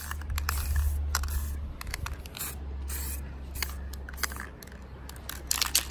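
Aerosol spray-paint can hissing as a coat of paint is sprayed on, mixed with a low rumble, cloth rubbing and knocks from a shirt sleeve against the camera's microphone.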